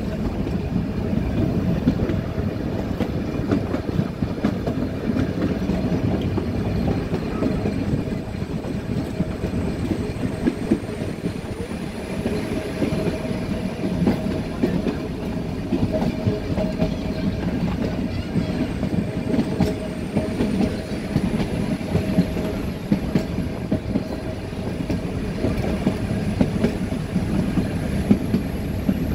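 Nilgiri Mountain Railway metre-gauge passenger coaches running along the track, heard close from an open window: a steady rumble with constant clattering and rattling of the wheels and coach, over a steady hum.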